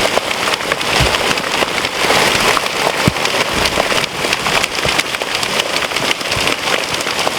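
Heavy hail pelting down, a dense hiss of countless stones with sharp individual ticks and cracks of larger hailstones hitting close by. The storm is at full intensity.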